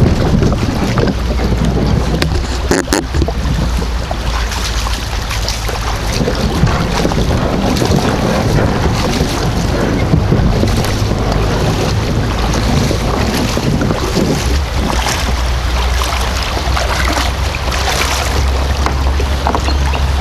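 Shallow creek water rushing over a riffle and splashing around wading legs and a towed kayak, with scattered short splashes. Wind buffets the microphone throughout as a steady low rumble.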